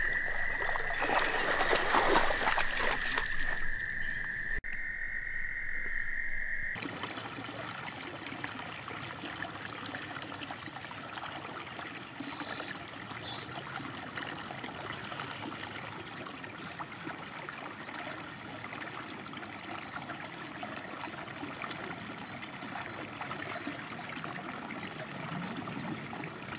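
A dog paddling and splashing through pond water while a frog's steady high trill runs underneath. A few seconds in this stops abruptly and gives way to a quieter, even trickling sound with faint chirps.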